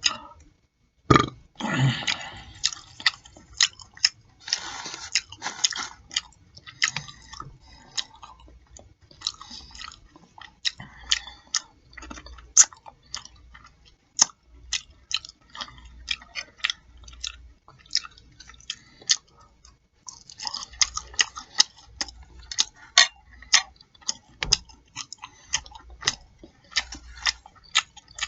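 Close-miked chewing and lip-smacking of a pork chop meal, with many sharp, wet mouth clicks and smacks coming in irregular runs and short pauses between mouthfuls.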